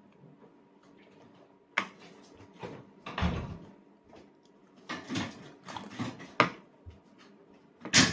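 A metal spoon knocking and scraping against a plastic plate as a toddler scoops food: a string of irregular clicks and short scrapes, with the sharpest knock near the end. A faint steady hum runs underneath.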